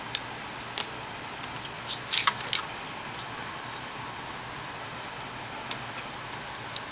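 Small sharp clicks and taps of fingers handling and pushing small wire connectors into their sockets on a monitor's circuit board. There is one click just after the start, another a bit under a second in, and a cluster of clicks around two seconds in, over a steady faint hiss.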